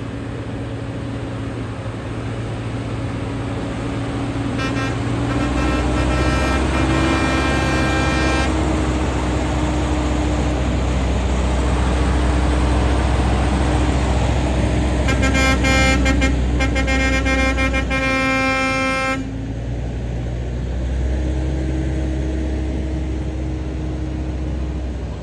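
Diesel semi truck passing close by with its engine running, its air horn sounding in two long blasts of about four seconds each, the first about five seconds in and the second about fifteen seconds in.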